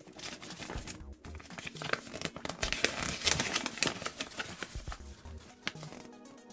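A folded paper leaflet being unfolded and flattened by hand: crinkling and rustling paper with sharp crackles, loudest in the middle and dying down near the end.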